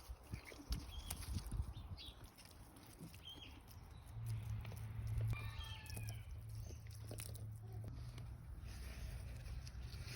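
Farm animals calling, with a cluster of short pitched calls about five seconds in and scattered clicks. A low steady hum comes in at about four seconds.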